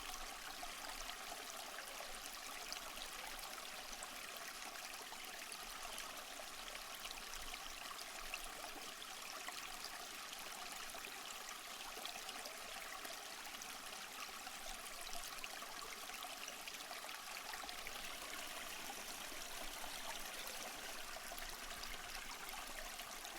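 Stream water flowing steadily, an even trickling and running of water.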